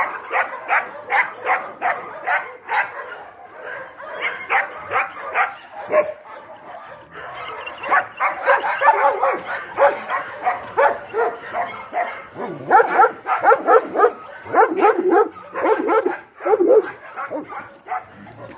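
Dogs barking and yipping in quick, repeated bursts, denser in the second half, with louder, lower-pitched barks near the end.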